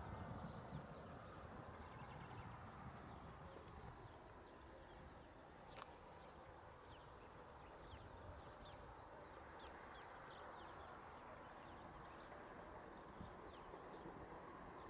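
Quiet countryside with faint bird chirps scattered throughout, over a low rumble that fades during the first few seconds.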